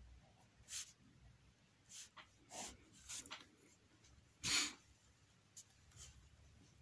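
Ballpoint pen writing on paper: a handful of short, faint scratches with gaps between them, the loudest about four and a half seconds in.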